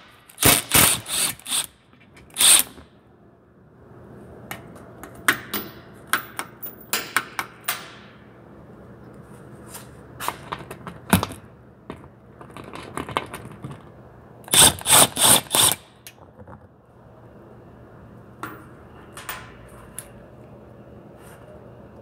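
Cordless impact tool run in short bursts, several times over, backing out the 10 mm fasteners of an engine underbody shield, over a steady low shop hum.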